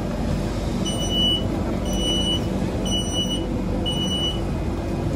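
MRT door warning chime: four short, high beeps about a second apart, over the steady low hum of the stopped train and station.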